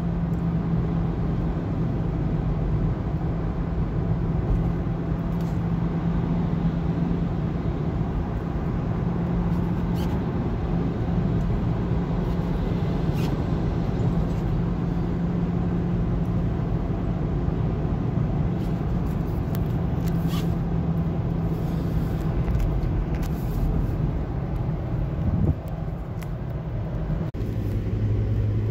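Steady road and engine noise heard from inside a car cruising on an expressway: a continuous low drone with tyre noise and a few faint clicks. About 25 seconds in, the drone drops in level and shifts lower in pitch.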